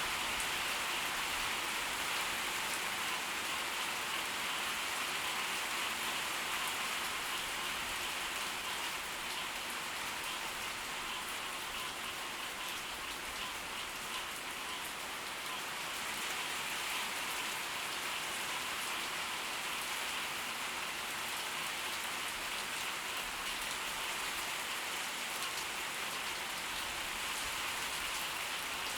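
Steady heavy tropical-storm rain falling, a dense even hiss of drops with fine patter, no thunder.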